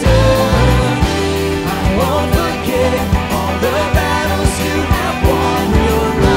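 Worship band music with a steady drum beat under sustained chords and a bending melodic line.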